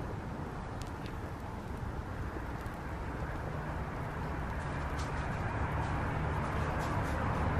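Shoe burning on charcoal in a metal fire pit: a steady rush of flames with a few faint crackles, slowly growing louder.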